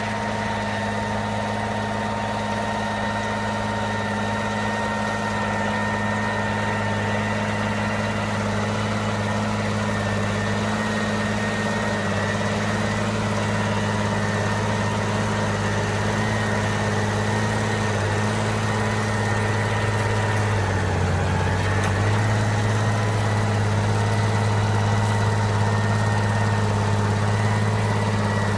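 SAME Titan 145 tractor's diesel engine running steadily while pulling a homemade aerator through the ground, with a steady whine above the engine hum. It grows slowly louder as the tractor comes closer, and about twenty seconds in the engine note sags briefly under the load, then recovers.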